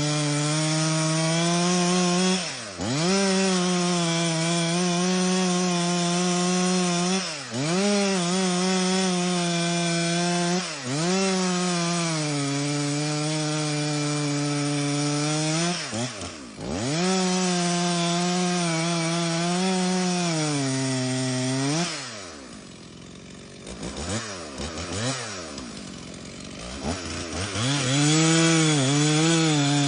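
About 60cc two-stroke chainsaw running at full throttle through wood. The engine speed dips sharply and recovers several times. About two-thirds of the way in it drops to idle with a couple of quick blips, then revs back up to full speed near the end.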